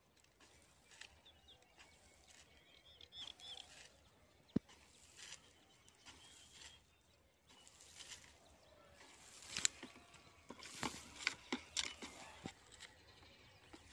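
Fertilizer being hand-broadcast from a plastic bucket over dry tilled soil: irregular soft swishes and patters as handfuls are scooped and flung, louder and quicker near the end. One sharp click about four and a half seconds in.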